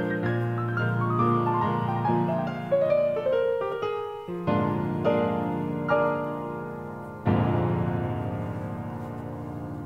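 Background piano music: a gentle run of notes, then chords struck about halfway through and again twice more, the last left to ring out and fade.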